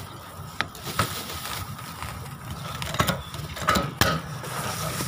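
A hand pop-rivet tool setting rivets through roof insulation: about five sharp metal clicks and snaps, spread over a few seconds, with the loudest two near the end.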